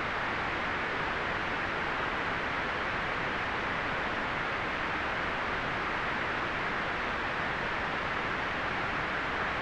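Steady white noise for relaxation: an even, unchanging hiss, strongest in the middle range with the highest tones rolled off.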